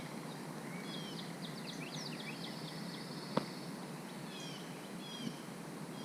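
Small birds chirping and twittering in a string of quick high notes, with a brief buzzy trill, over a steady outdoor hiss. A single sharp click stands out about three and a half seconds in, and a fainter tick comes near the end.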